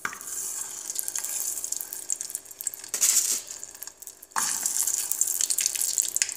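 Frozen potstickers sizzling and crackling in hot oil in a non-stick frying pan as they are set down. The sizzle dips and then flares up sharply a little over four seconds in, as another dumpling goes into the oil.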